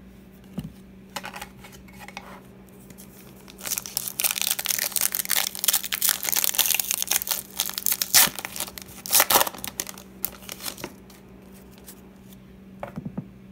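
Foil trading-card pack wrapper being crinkled and torn open by hand, a dense crackling that starts a few seconds in and runs for about seven seconds, loudest near the end.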